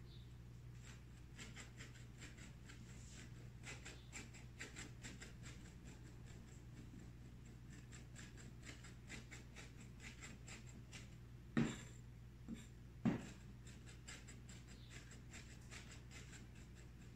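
Kitchen knife chopping herbs on a cutting board: a long run of light, quick taps, about three or four a second, then two louder knocks about two-thirds of the way through. A faint steady hum lies underneath.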